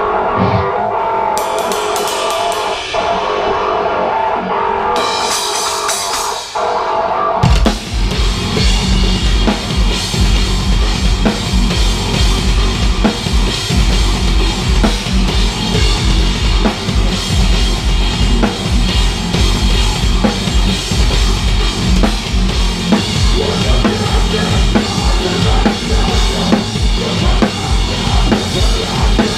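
Live heavy metal band: for about seven seconds a guitar plays with two cymbal crashes ringing out, then the full band comes in with rapid bass drum strokes and cymbals on a DW kit with Soultone cymbals.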